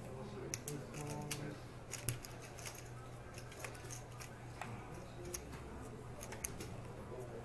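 Poker chips and playing cards being handled on a felt poker table: irregular light, sharp clicks, several a second, over faint voices in the room.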